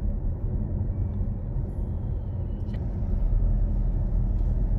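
Car driving along a road: a steady low rumble of engine and road noise that grows a little louder about three seconds in.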